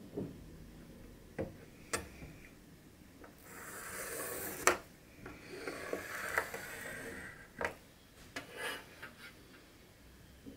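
A marking pencil scratching across fabric along a metal ruler, in two longer stretches of strokes, with scattered sharp clicks and taps as the ruler is shifted and set down on the table. The sharpest click comes about halfway through.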